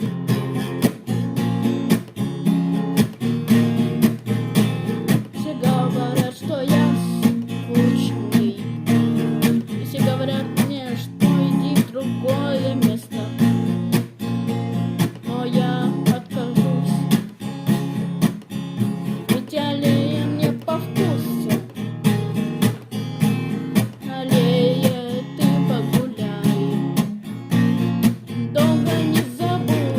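Song with a strummed acoustic guitar keeping an even rhythm and a wavering melody line above the chords.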